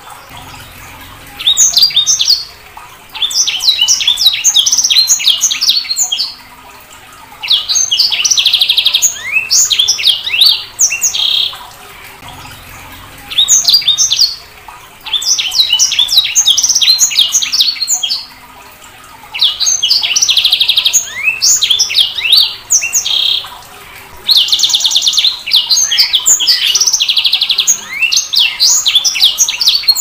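Sanger (a small seedeater finch kept as a songbird) singing: repeated phrases of fast, high twittering notes, each a couple of seconds long with short pauses between, some ending in a buzzy trill.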